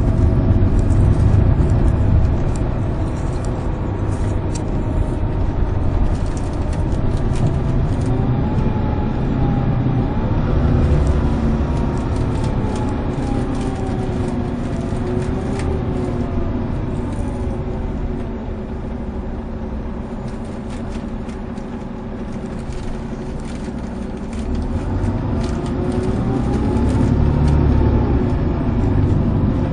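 Volvo B11RT coach's 11-litre six-cylinder diesel heard from inside the cabin over a low road rumble, its note climbing and then dropping back several times as it accelerates and changes gear. It eases off in the middle and pulls hard again near the end.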